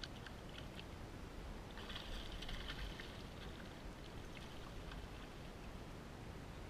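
Faint splashing as a hooked fish thrashes at the surface beside a kayak, with a louder splash about two seconds in.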